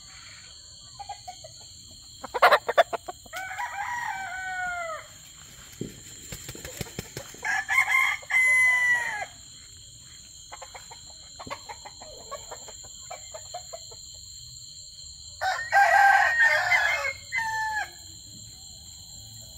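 Gamefowl roosters crowing: three long crows, about three seconds in, about eight seconds in, and near the end, over a steady high-pitched hum. A quick run of sharp taps comes just before the first crow.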